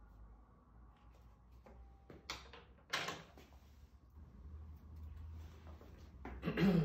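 Faint clicks and knocks from someone moving about in a small room, with two sharp clicks about two and three seconds in and a louder knock near the end.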